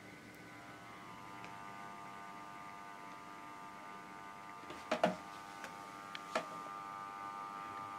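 Bachmann OO gauge Class 37 model locomotive's electric motor whining steadily as it crawls at low speed, slightly louder from about a second in, with a few sharp clicks near the middle. The crawl is still a bit juddery after running in.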